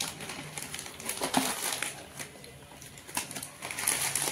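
Plastic grocery packets crinkling and rustling as they are handled and put down, with a string of short sharp crackles.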